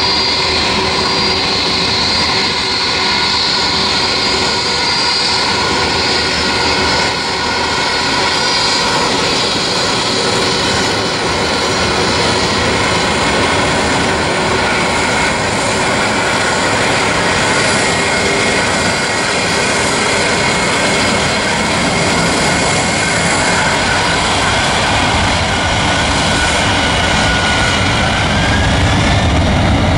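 Boeing 747-400 freighter's four turbofan engines whining steadily at low power as it taxis. Near the end a rising whine and a deepening rumble come in as the engines spool up.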